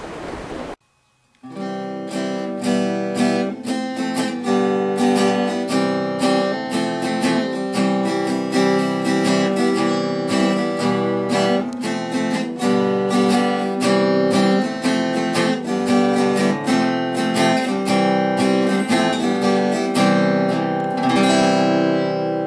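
Solo acoustic guitar instrumental: plucked notes in a steady, flowing rhythm, starting about a second in after a brief burst of wind and sea noise cuts off.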